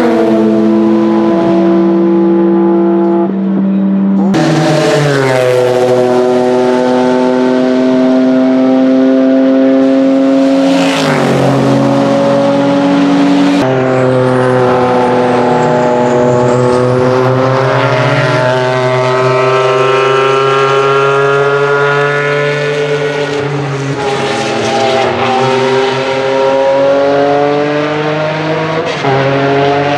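Porsche 996 GT3 race cars' 3.6-litre flat-six engines at high revs as several cars come by one after another. Gear changes step the engine pitch near the start and again around the middle, and the note rises and falls as the cars pass.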